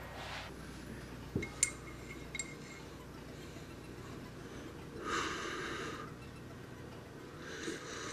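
A man breathing and sipping from a ceramic mug in a quiet room, with two short noisy breaths or sips about five seconds in and near the end. A couple of light clinks come about one and a half seconds in, one of them ringing briefly.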